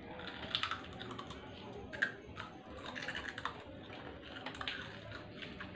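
Crisp keropok crackers being bitten and chewed close to the microphone: irregular sharp crunches, several a second.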